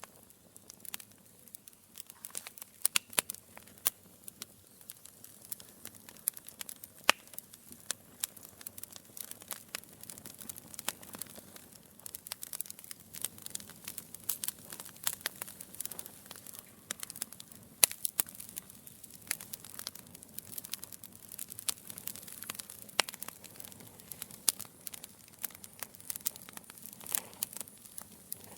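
Fire crackling: irregular sharp pops and snaps, a few much louder than the rest, over a soft steady hiss and low rumble of burning.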